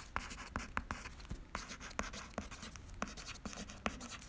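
Pencil writing on paper: a quick run of short scratchy strokes, several a second.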